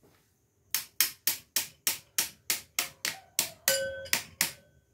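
Motorcycle engine piston being worked back and forth by hand on its connecting rod, giving about a dozen sharp metallic clicks, roughly three a second, each with a short ringing tone. The piston's fit on the rod is being checked; the small-end bushing is tight.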